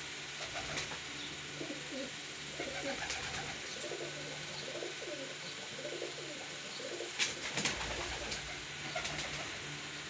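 Domestic pigeons cooing, a run of low coos through the first half, then a few sharp clicks a little past seven seconds in.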